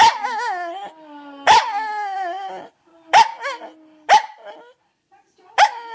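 Dog barking in five sharp, high-pitched barks about a second or so apart, each drawn out into a wavering, whining yowl.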